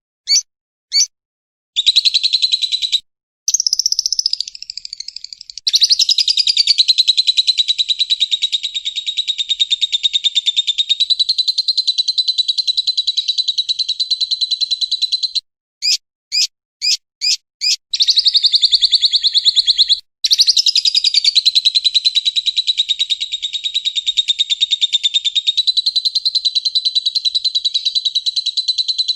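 Lovebird chattering in long, rapid, high-pitched trills, the drawn-out 'ngekek' song, each run lasting several seconds up to about ten. Short breaks and a quick series of about five separate chirps come about halfway through.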